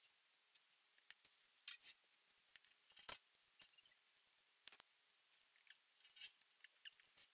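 Faint scattered clicks and crackles of a cake server cutting into a frosted layer cake with a toasted-coconut coating and lifting out a slice. The sharpest click comes about three seconds in.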